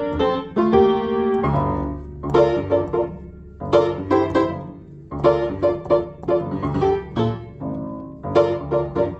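Piano playing a grooving, syncopated pattern of short chord stabs over bass notes, the chords falling in clusters about every second and a half.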